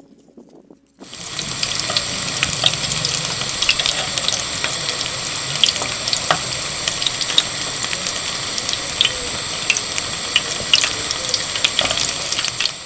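Steady sizzling hiss dotted with small crackles and pops, starting about a second in and cutting off abruptly near the end.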